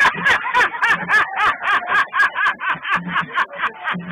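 Rapid, rhythmic laughter: a steady run of short 'ha' pulses, about six a second.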